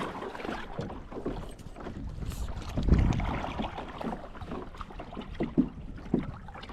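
Irregular small knocks and water noise from a fishing kayak being manoeuvred, with a heavier low thump about three seconds in.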